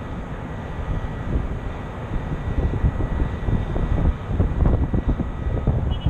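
Wind buffeting the microphone in uneven gusts, with a faint steady high tone underneath.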